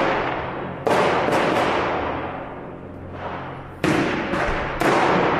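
New Year's Eve fireworks and firecrackers going off in the street. There are several loud bangs, each with a long echo off the buildings: one about a second in, followed quickly by two lighter cracks, then two more bangs near the end.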